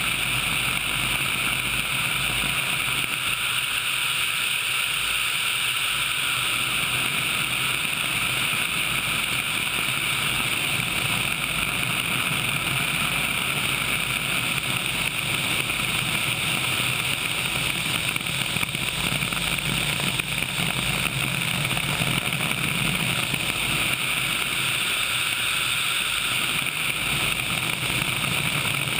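HH-60 Pave Hawk helicopter in flight: a steady drone of engine and rotor noise mixed with rushing wind on a camera microphone mounted outside the aircraft.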